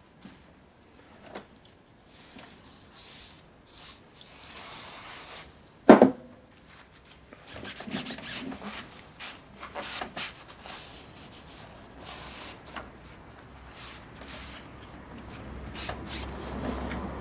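Hand rubbing and scraping, uneven and stop-start, as in scrubbing rust off the parts of an old mini lathe, with one sharp knock about six seconds in and scattered clicks.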